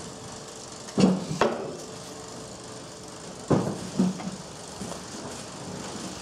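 Sharp metal clanks and knocks from a clay roof tile molding machine as its curved metal mold and parts are worked by hand: two pairs of strikes, about a second in and about three and a half seconds in, the second strike leaving a short metallic ring.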